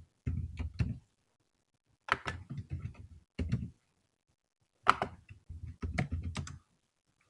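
Keystrokes on a computer keyboard, typed in short bursts of a word at a time with silent pauses between, as answer words are entered.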